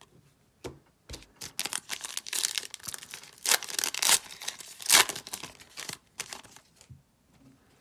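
A foil trading-card pack wrapper being torn open and crinkled by hand: a run of sharp crackling rips, loudest about three to five seconds in, then dying away.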